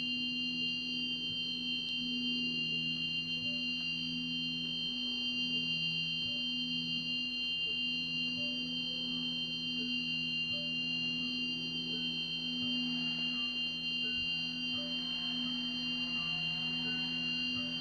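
Sustained electronic drone of several steady tones, a low pair and a high, thin set, gently pulsing. Faint wavering tones drift in over its second half, like an ominous horror-film underscore.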